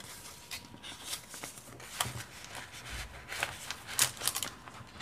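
Paper being handled: small sheets and a folded paper envelope rustling and crinkling as they are folded and tucked into a pocket, with irregular light taps and a sharper tap about four seconds in.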